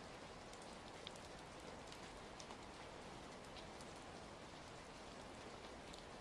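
Soft, steady rain falling, with scattered small ticks.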